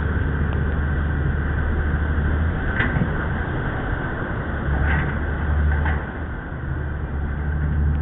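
A Coast Guard surf rescue boat's engines running with a low drone that drops away and comes back twice, under a steady rush of wind and water as the boat rides up and over a breaking wave. A few sharp knocks come around the middle.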